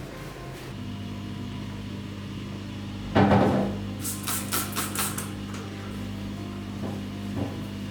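A steady low electrical hum, as from a running household appliance, starts a little under a second in. About three seconds in comes a loud short clatter, then a quick run of about six sharp clicks.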